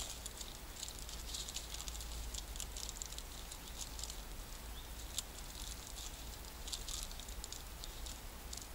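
Plastic food packet crinkling and rustling as it is handled and opened, a dense run of sharp little crackles throughout.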